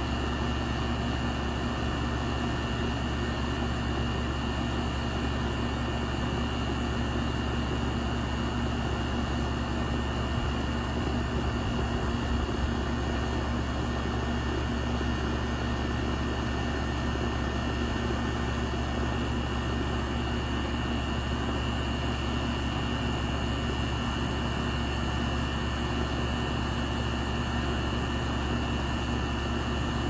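A 2001 York central air conditioner's outdoor condensing unit running steadily: a constant hum with the rush of the top-mounted condenser fan, unchanging throughout.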